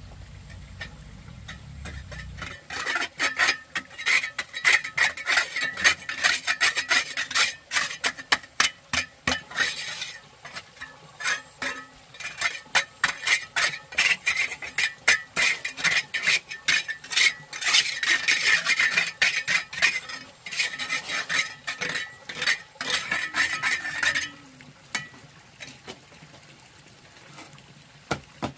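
Metal trowel scraping and working wet cement mortar in rapid, uneven strokes, with clinks of metal on metal. It starts about two seconds in and stops a few seconds before the end.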